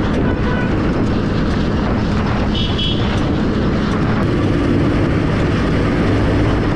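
Farm tractor's diesel engine running steadily at close range, with a loud, even rumble.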